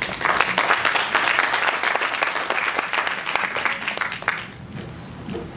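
Audience applauding, a dense patter of many hands that dies away about four and a half seconds in.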